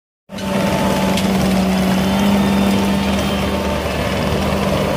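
Engine of a Ditch Witch SK1550 stand-on mini skid steer running steadily with a constant hum as it carries a loaded bucket. The sound cuts off suddenly near the end.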